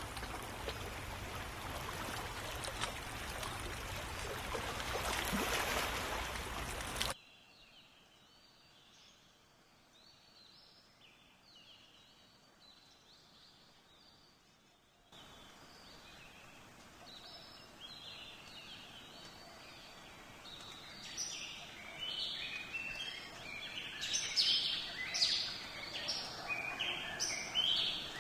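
A steady rushing noise cuts off abruptly about seven seconds in, giving way to birds chirping and singing, faint and sparse at first, then louder and busier from about twenty seconds in.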